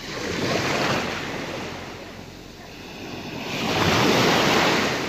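Two swells of rushing noise from small sea waves washing in, mixed with wind on the microphone; the second swell is the louder.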